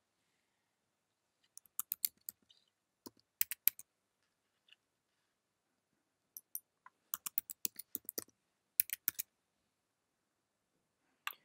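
Computer keyboard keystrokes typing a password: a few quick clicks about two seconds in and again about three and a half seconds in, a longer run of quick keystrokes from about six to nine seconds, and a single click near the end.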